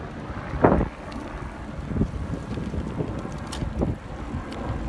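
Wind buffeting the microphone of a bike-mounted camera while riding, an uneven low rumble that comes and goes in gusts, with a louder burst less than a second in.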